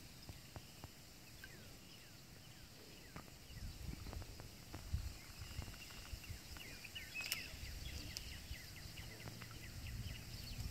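Quiet outdoor ambience: a low rumble that grows louder partway through, scattered clicks with one sharp click about seven seconds in, and faint high chirps.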